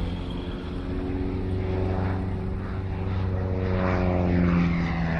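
Propeller airplane engine droning in flight, growing steadily louder as the plane comes closer.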